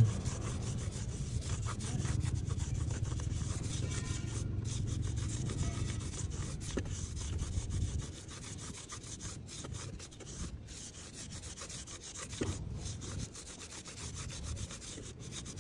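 Cloth rubbing and wiping over a motor scooter's rubber tyre sidewall, working in a tyre dressing: a continuous scrubbing rasp, louder for about the first half, then softer.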